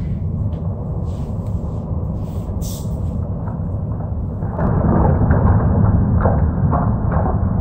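Deep, steady rumbling drone of horror-film sound design, swelling louder about four and a half seconds in. Short hisses come over it in the first three seconds, and crackles after the swell.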